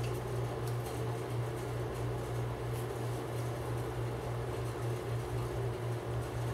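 Steady low hum in a small room, with a few faint clicks and scrapes from a steel cleaning rod and swab being worked through a Ruger Mk III .22 pistol barrel.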